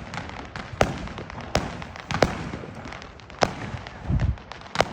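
Fireworks going off: five sharp bangs roughly a second apart, a low rumbling boom about four seconds in, and faint crackling in between.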